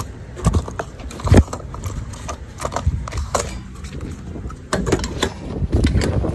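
Irregular knocks, clicks and rubbing from a phone camera being handled, over a low rumble.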